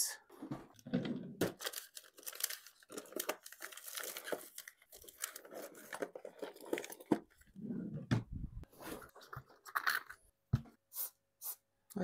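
Circuit-board cleaning: aerosol cleaner sprayed onto the board and the board scrubbed with a toothbrush, giving irregular scratchy, crackly noise with many small clicks from handling.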